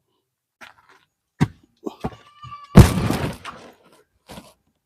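Handling noises while getting into a tent: a few knocks and thuds, a short squeak, and a loud scraping rasp about three seconds in.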